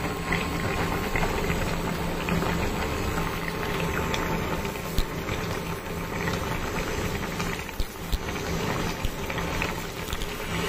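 Okra, potato and fish curry bubbling at a steady boil in a nonstick pan, full of small pops and crackles, over a low hum that cuts in and out.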